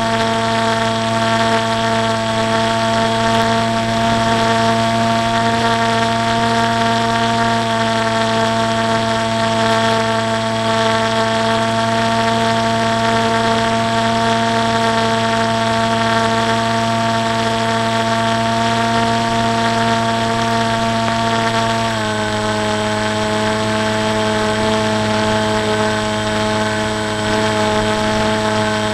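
Electric motor and propeller of a small foam flying wing in flight, picked up by the onboard action camera: a steady whine over a strong hum. About 22 seconds in, its pitch drops slightly and abruptly, then holds steady again.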